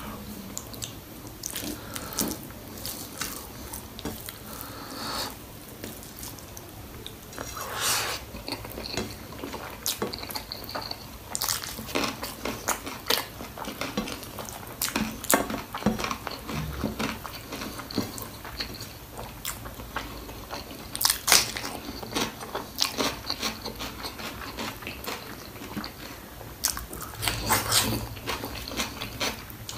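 Close-up eating sounds of someone chewing and biting on goat trotters (mutton paya) with rice and gravy: irregular mouth smacks and occasional crunches, with a few louder bursts of them along the way.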